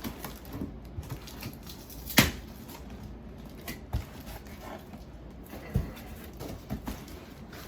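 Cardboard shipping box and its packing being handled and opened: scattered knocks and rustling, with the loudest knock about two seconds in.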